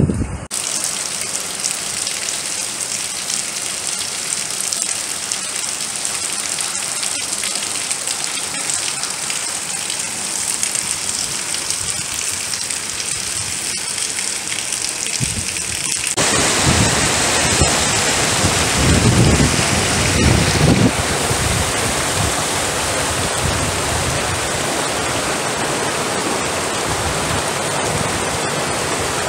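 Heavy tropical-storm rain falling in a steady hiss. About sixteen seconds in it gives way to a louder, fuller rush of rain and running floodwater, with low rumbles for a few seconds.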